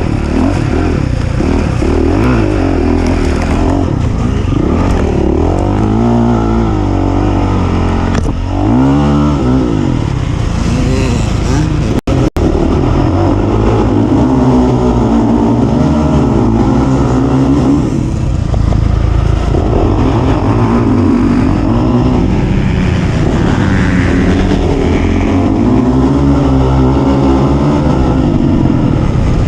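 Off-road racing engine at full race effort, revving up and down again and again as the rider works the throttle and gears over the course. The sound cuts out briefly about twelve seconds in.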